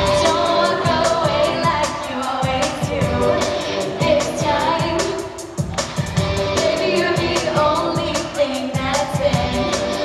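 Live pop-rock band (drum kit and electric guitar) kicking in at full volume, with a woman's lead vocal sung into a microphone over a steady drum beat.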